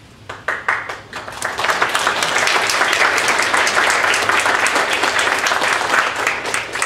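Audience applauding: a few scattered claps that swell within a couple of seconds into full, steady applause, thinning out near the end.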